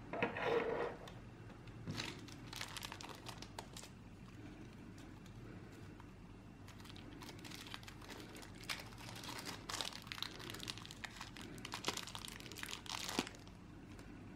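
Small clear plastic packaging bags crinkling and rustling as they are handled, in irregular bursts with a quieter stretch in the middle.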